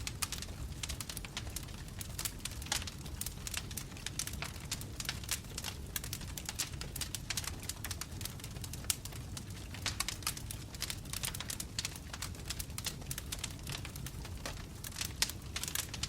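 Wood fire crackling: burning logs popping with many irregular sharp snaps over a steady low rumble of flame.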